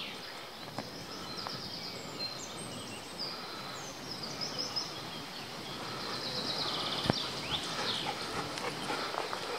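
Small songbirds singing, with rapid high trills and short chirps over a steady outdoor hiss. One sharp click comes about seven seconds in.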